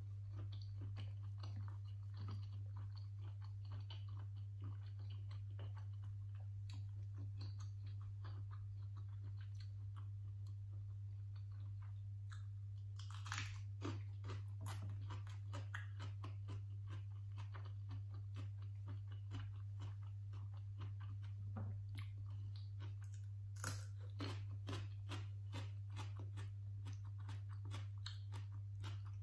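Close-miked chewing and crunching of raw vegetables eaten with chili paste: many quick wet mouth clicks and crackles, with two louder crunches, one about halfway through and one near the end. A steady low hum runs underneath.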